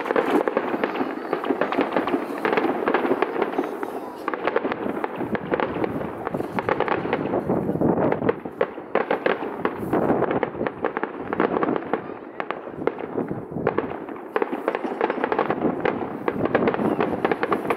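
Fireworks display going off in a dense, continuous stream of cracks, pops and bangs.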